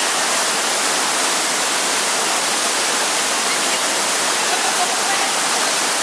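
Kibune River water rushing steadily beneath a kawadoko riverside dining platform, a loud, even rush with no break.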